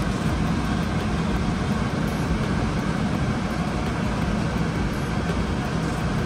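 Steady low rumbling background noise with no distinct events, the constant running hum of the kitchen.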